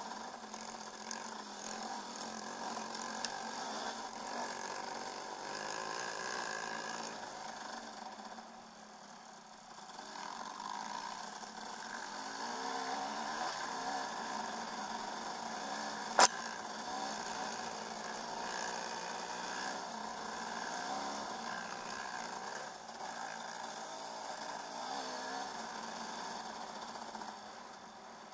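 2008 KTM 300 EXC two-stroke enduro engine running under varying throttle as the bike rides a dirt trail, briefly quieter about eight seconds in. A single sharp knock about halfway through stands out above the engine.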